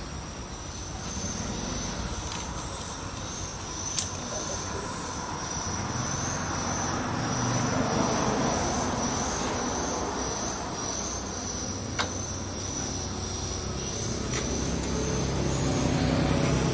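A motor vehicle's engine drone that swells and fades twice, over a steady high insect trill, with two sharp clicks about four and twelve seconds in.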